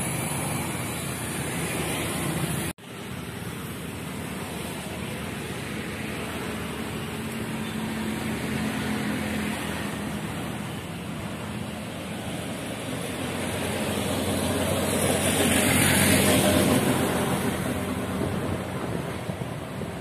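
Vehicle and traffic noise, steady and without a clear engine note, that swells to its loudest about three quarters of the way through and then fades, as something passes close. The sound drops out for a moment about three seconds in.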